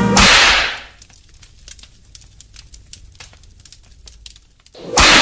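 Edited-in transition sound effects: a sharp swoosh that dies away within about a second, then faint scattered crackling, then a second swoosh near the end.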